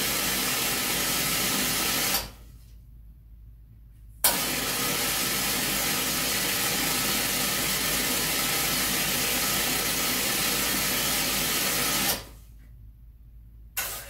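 Astoria Divina two-group espresso machine letting out hot water and steam in a loud, steady hiss, in two runs that start and stop sharply: the first cuts off about two seconds in, and the second starts about four seconds in and stops near the end. Drawing the hot water lowers the boiler level so that the automatic fill pump switches on, with a click near the end.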